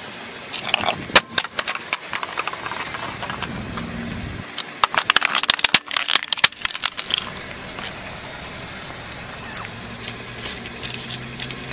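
Hard plastic mug cracking and splintering under a slowly rolling car tire: a dense run of sharp cracks lasting about two seconds around the middle. A few sharper clicks come near the start, and small clicks and rustles near the end as the broken shards are handled.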